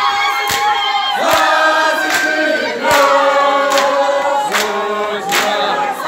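A crowd singing together in harmony, many voices holding long notes at once, with sharp beats a little under a second apart keeping time.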